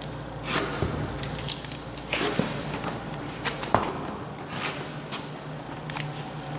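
Horse's intestinal gut sounds heard through a stethoscope on the abdomen: irregular gurgling rushes and crackles, about five in a few seconds, over a steady low hum.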